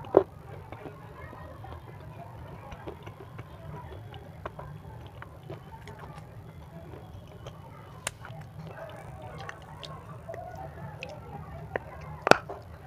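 Close-miked chewing of a white, chalky edible 'crunchy stone': faint gritty crackles and small ticks over a low steady hum, then one loud, crisp crunch as a new piece is bitten near the end.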